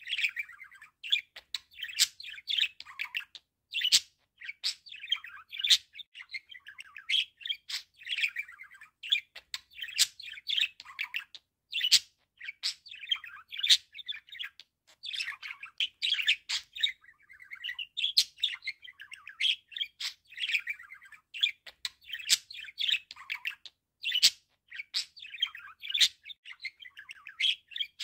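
Budgerigar warbling: a continuous stream of fast chattering chirps, squeaks and sharp clicks without a break.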